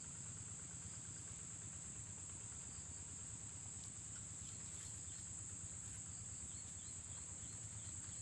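Steady, high-pitched insect drone, an unbroken chorus of calling insects of the cricket kind.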